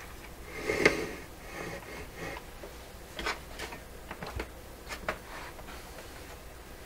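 Light clicks and knocks of hands working at the radio's antenna connection, with one sharper knock about a second in and several lighter clicks a few seconds later, over a faint steady low hum.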